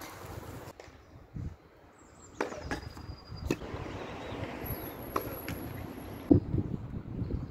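Scattered knocks on an outdoor hard tennis court between points: a tennis ball being bounced and footsteps, with the sharpest knock about six seconds in. Two short high squeaks come early on and midway.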